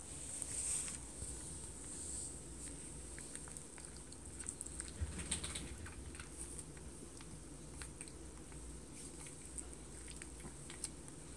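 Faint soft clicks and rustling from a three-week-old puppy nuzzling and suckling at its mother dog's belly. The clicks are irregular, with a denser cluster around the middle.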